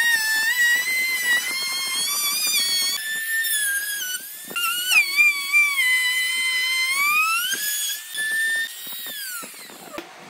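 Compact trim router whining at high speed as it cuts a profile along the edge of a pine board. Its pitch dips and recovers as the bit takes more or less wood, and the motor spins down near the end.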